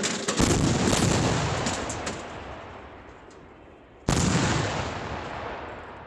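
Two heavy artillery reports from 152 K89 (Soviet 2A36) 152 mm towed field guns, about four seconds apart. Each is a sudden boom that rumbles away over the next couple of seconds.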